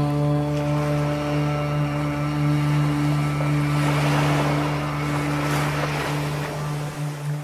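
Ambient drone music: a steady low hum with held overtones, over which a wash of noise like surf swells up about halfway through and fades away.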